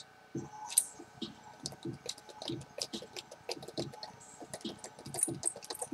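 Faint, irregular clicks and ticks, several a second, from the wind-up auto-start mechanism of an NSD Powerball gyroscopic wrist exerciser as it is wound and handled. The attempt to get the rotor spinning does not succeed.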